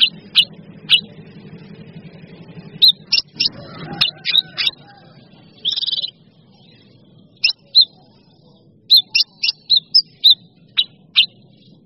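Mixed song of caged blue-winged leafbird (cucak cungkok), cucak kinoi leafbird and cream-vented bulbul (kapas tembak): a run of short, sharp chips and quick whistled notes, with a short buzzy trill about halfway through. The calls come in clusters, with gaps of up to about a second.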